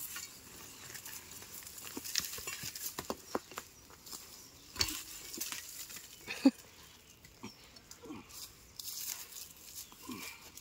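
Scattered knocks and scrapes of a large stone being worked and shifted with hand tools, the sharpest knock about six and a half seconds in, with a few short low voice-like sounds in between.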